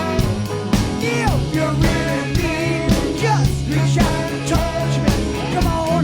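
Rock band music with drum kit and electric guitar, with bending melodic lines on top.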